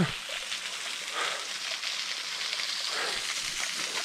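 Water running in a thin sheet over a bare rock slab and spilling off a rock ledge in a small waterfall, a steady hiss. A few faint, short sounds rise over it.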